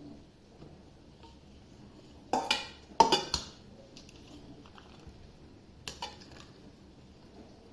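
Kitchen utensils and dishes clattering and clinking: a quick run of sharp hits a little over two seconds in, the loudest around three seconds, and a shorter pair near six seconds.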